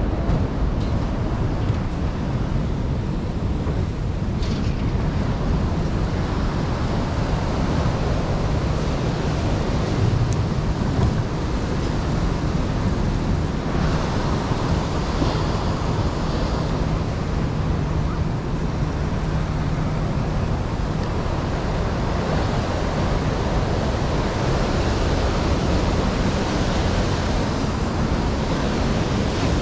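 Heavy surf breaking on a rocky shore: a steady, unbroken rush of waves and whitewater, with wind buffeting the microphone.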